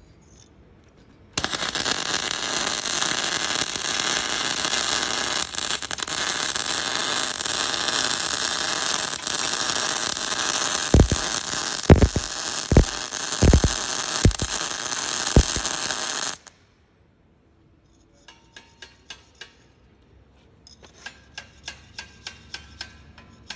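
MIG welding arc crackling steadily for about fifteen seconds, then cutting off abruptly, with several low thumps in its last few seconds. After a short pause, quick runs of sharp metallic ticks follow.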